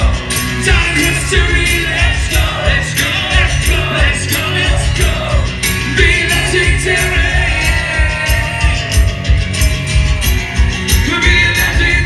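Live rock band playing an acoustic set with a male lead vocal, over a steady beat, heard loud from inside the audience.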